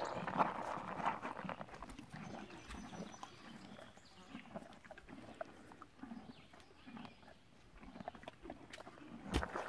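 A horse chewing a mouthful of feed pellets: irregular crunches over a soft, recurring chewing rhythm, with one sharp knock near the end.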